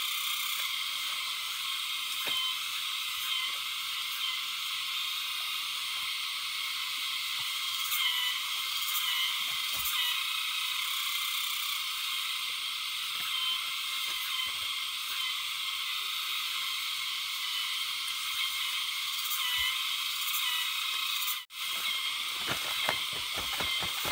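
A steady, high-pitched chorus of calling wild creatures, frogs or insects. It cuts out for a moment near the end, after which a few soft knocks are heard.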